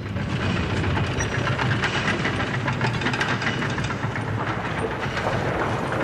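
Theme-park mine-train sound effect: a steady low rumble with a dense, rapid clatter of wheels on rails.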